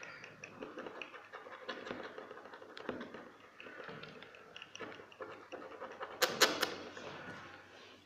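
Close handling on a smartphone's cracked glass back: light, irregular scraping and clicking, with three sharp clicks close together about six seconds in.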